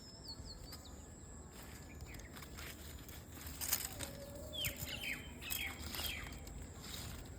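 Small birds chirping, with a cluster of quick falling chirps about two-thirds of the way in, over a few brief rustles and clicks.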